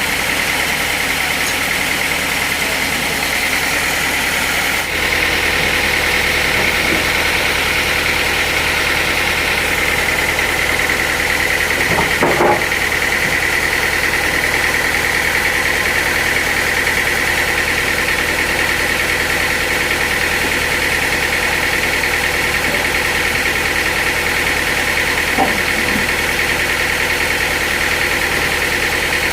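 Sawmill machinery running steadily: an engine-driven saw with a constant high whine over a low hum, the low hum changing about five seconds in, and a couple of brief louder sounds over it.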